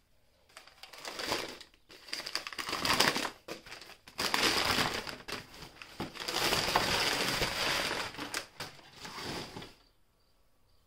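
Packing material being crumpled and crushed in irregular crackling bursts, which stop near the end.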